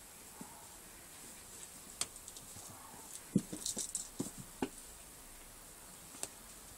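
Faint, scattered taps and scratches of a kitten's paws and claws on a wooden step, with a cluster of small knocks in the middle and one more near the end.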